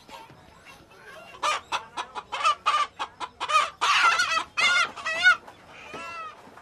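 A chicken squawking loudly while it is being handled: about a dozen harsh calls in quick succession over some four seconds, then one fainter call near the end.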